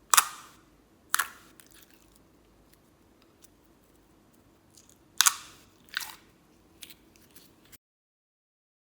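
Sharp crunches from slime and makeup being pressed and broken by hand: two loud ones in the first second, two more about five and six seconds in, then a few faint ticks. Near the end the sound cuts off suddenly to dead silence.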